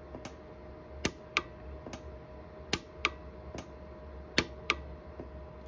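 Orion 150s pulse arc micro TIG welder firing single weld pulses into a silver ring, each one a sharp snap, about nine of them irregularly spaced as the electrode moves from spot to spot. The pulses are at a raised energy setting of 15, for deeper penetration to smooth and seal filled porosity. A faint steady tone runs underneath.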